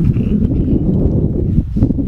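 Wind buffeting the microphone: a loud, uneven low rumble with a short lull near the end.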